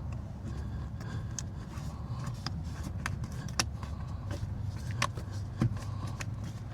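Scattered sharp clicks and small plastic knocks as the electrical connectors are pushed into the door panel's wiring, over a steady low hum.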